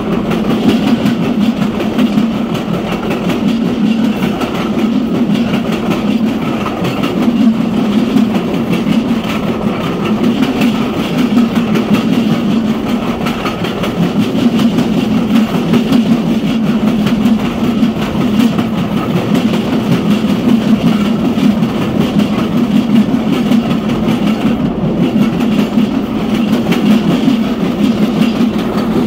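Railroad passenger car rolling fast downhill: a steady rumble of steel wheels on the rails with a constant rattling clatter, swelling and easing every few seconds, heard from the open rear end of the train.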